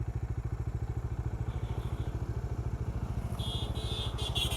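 Motorcycle engine idling with a steady, even, rapid pulse. A rapid high-pitched chirping joins in about three seconds in.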